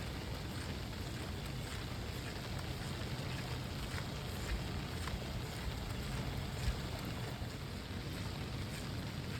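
Rain sound-effect loop: a steady rain hiss over a low rumble, with a few faint drop-like ticks midway.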